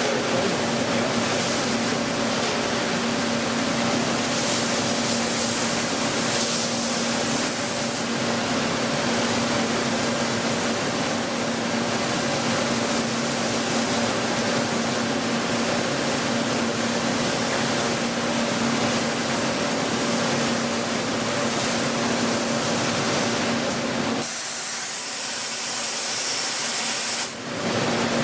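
CNC machine tool running with coolant spraying: a steady hiss with a constant hum under it. About four seconds before the end the hum drops out and a thinner, higher hiss remains, with a brief dip just before the end.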